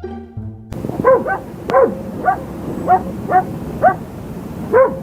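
A dog barking repeatedly in short, high yips, each rising and falling in pitch, about two a second and sometimes in quick pairs, starting under a second in.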